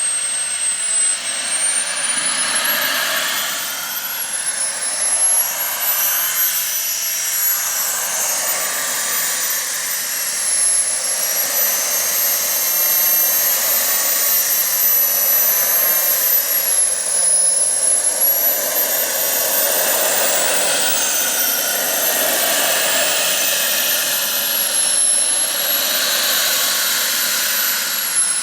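Jetcat P100RX model turbojet in an RC F15 jet, a steady rushing roar with a high-pitched whine on top. The whine rises and falls again and again.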